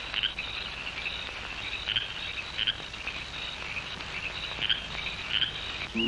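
Rainforest ambience: a steady high insect drone, with short, louder calls breaking through about five times.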